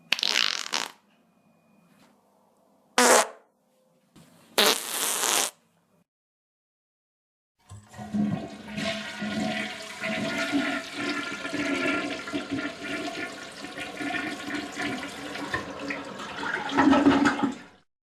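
Three short hissing bursts, then a toilet flushing for about ten seconds, a long rush of water with gurgling that swells near the end before cutting off.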